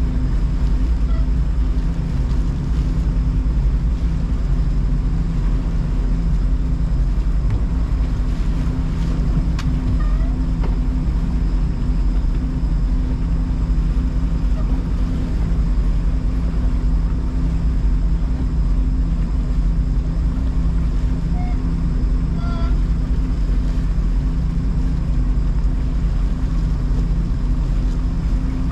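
Small motorboat's engine running steadily at a slow cruise, a low hum that holds one pitch, over the noise of water around the hull.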